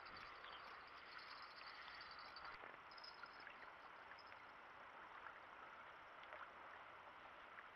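Near silence: faint outdoor riverbank ambience, a soft even hiss with a faint high twittering.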